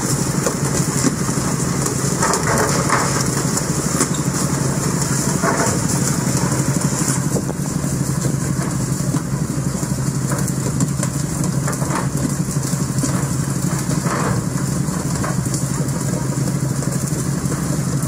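Fishing boat's engine running steadily under a constant hiss of water spray and sea wash along the hull.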